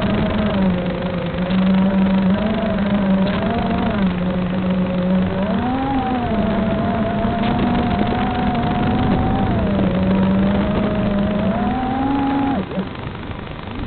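Motor of a radio-controlled aircraft in flight, a steady hum whose pitch rises and falls with the throttle; it cuts out for about a second near the end, then picks up again. Strong wind buffets the microphone throughout.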